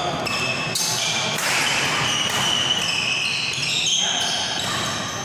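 Badminton rally on an indoor court: sneakers squeaking on the court floor and the shuttlecock being struck, over background chatter from onlookers.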